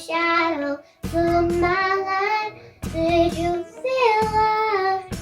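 A young girl singing a melody in several short phrases of held notes, over a faint backing track.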